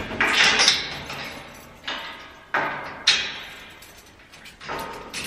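Wire-mesh metal storage-cage door rattling and clanking as its lock is worked, in about five sharp jolts that each ring out briefly.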